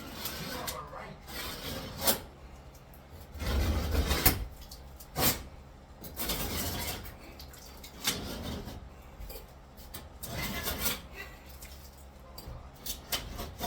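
Irregular clattering, knocks and scraping of bathroom wall demolition: broken tile and plaster being struck and moved, with several sharp impacts and longer rough scrapes.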